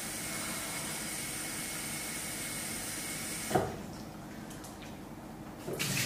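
Kitchen tap running into a glass with a steady hiss, shut off with a clunk about three and a half seconds in. Near the end, water is tipped out of the glass into the sink.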